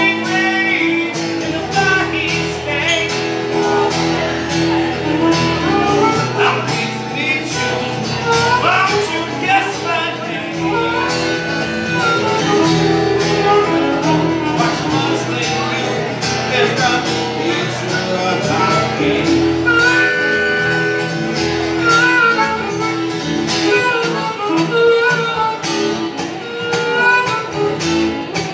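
Live acoustic guitar strumming chords with a diatonic harmonica playing a wavering, bending lead line over it, an instrumental break with no singing.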